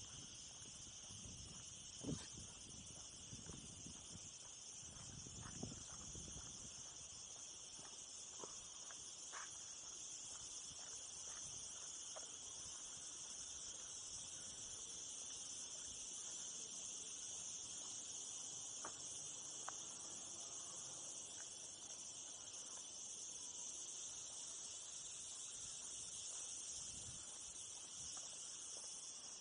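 A steady, high-pitched drone of cicadas buzzing in the summer heat, with a few soft knocks and scuffs of footsteps on the dirt path, the loudest about two seconds in.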